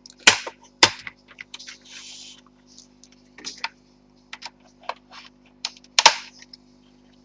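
Plastic case clips of a Cougar Puri TKL keyboard snapping loose as the two case halves are pried apart with a sharp tool: a run of sharp plastic clicks with a short scrape about two seconds in, the loudest click about six seconds in.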